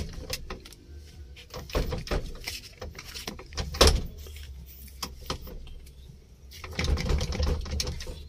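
Scattered light clicks and knocks of hands handling the metal parts of an opened steering column, with one louder knock about four seconds in and a quick run of clicks near the end, over a steady low hum.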